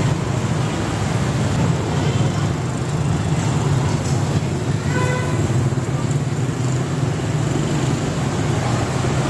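Steady city street traffic of motorbikes and cars, with a short horn toot about five seconds in.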